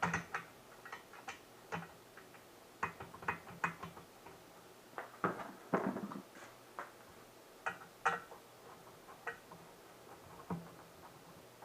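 Irregular light clicks and metallic taps, in small clusters, of tools and a screw working against a metal chair frame during assembly.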